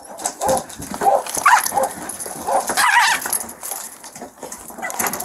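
Feral dogs barking and yelping in a run of short calls, several a second, with a couple of higher, louder yelps along the way and scattered clicks.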